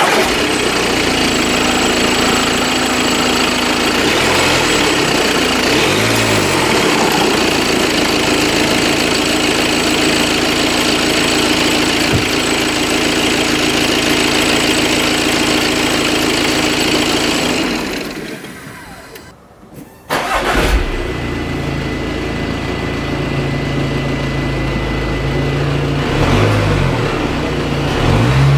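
Audi A6 2.0 TDI four-cylinder turbodiesel idling steadily, heard under the open bonnet, until it dies away about eighteen seconds in. About twenty seconds in it starts again, heard at the exhaust tailpipe with a deeper sound, and it is revved briefly twice near the end.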